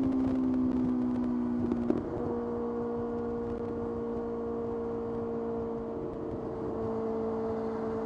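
Kawasaki ZX-6R's inline-four engine running under way. About two seconds in there is a short break and a small drop in pitch, then a steady note that sinks slowly.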